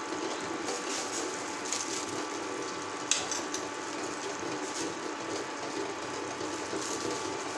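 Vegetable gravy simmering in an aluminium kadhai, a steady bubbling hiss, with a brief click about three seconds in.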